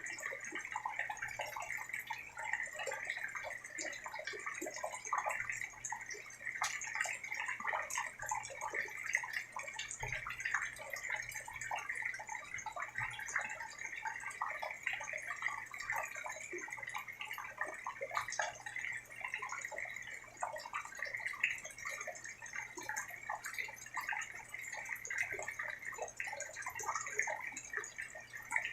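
Steady rain falling, with many separate drops and drips heard close by at an even level throughout.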